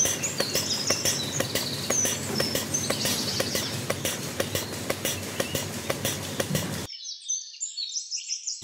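Bird chirps over a fast, even clicking. About seven seconds in, the clicking and low sound cut off, leaving only the high chirps.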